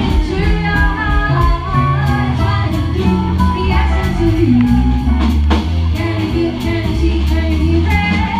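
Live band playing a song: a woman sings lead over electric guitar, drum kit and low bass notes, with a steady drum beat.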